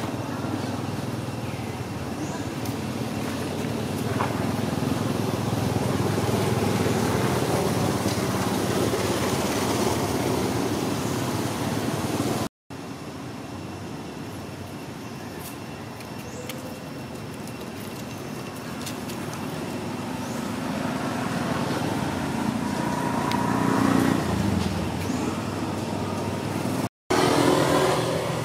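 Steady outdoor background rumble like passing road traffic, swelling and fading twice. The sound cuts out completely for an instant twice.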